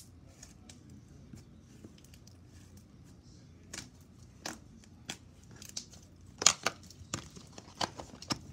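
Pale blue-green slime being squeezed, folded and pressed by hand, giving short sharp clicks and crackles at irregular intervals as it is worked. The clicks come thickest and loudest in the second half.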